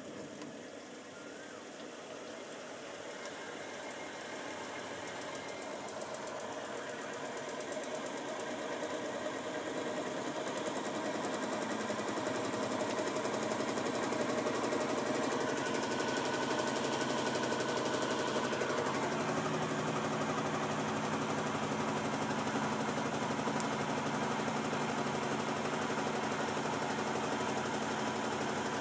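Washing-machine spin-dryer drum packed with wet straw spinning up under its electric motor: the running noise builds steadily for about fourteen seconds as the drum reaches speed, then holds level at full spin.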